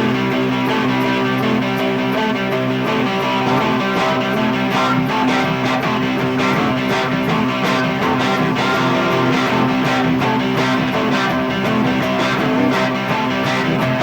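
Electric guitars strumming and letting chords ring, with no vocals over them.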